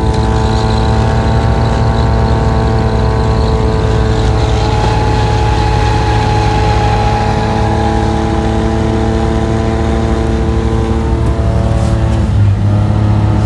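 Engine of a rubber-tracked vehicle running steadily under load as it drives through deep snow. The engine note dips briefly near the end.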